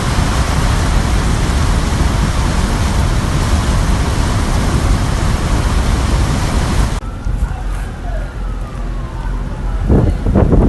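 Heavy rain pouring down in a loud, steady downpour that cuts off suddenly about seven seconds in. It gives way to a quieter stretch with a faint wailing siren and low gusts of wind buffeting the microphone near the end.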